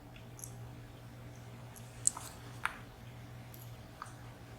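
A few light, sharp clicks of small metal lock parts being handled during disassembly of a dimple lock, two close together about two seconds in and another near the end, over a faint steady low hum.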